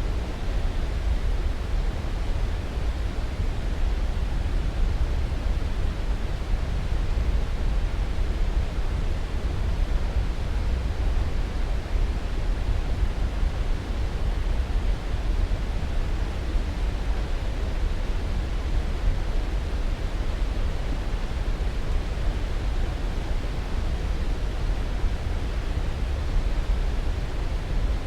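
Steady, unchanging noise for sleep, deep and heaviest in the bass, with a softer hiss above and no breaks or events.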